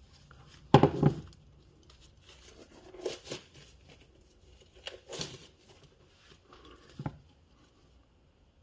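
Hands handling motor parts and wiring: a loud knock about a second in, rustling scrapes around three and five seconds, and a short sharp click near seven seconds.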